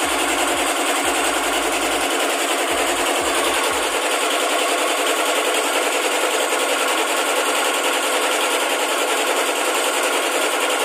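A machine running steadily with a fast, even rattle.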